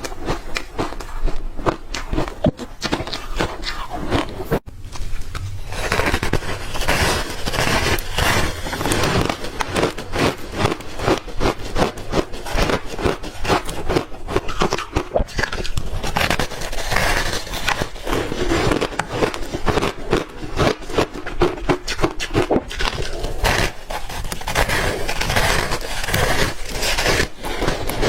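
Close-miked crunching and chewing of hard frozen ice chunks coated in matcha powder: rapid crisp crunches, several a second, with a brief pause about four and a half seconds in.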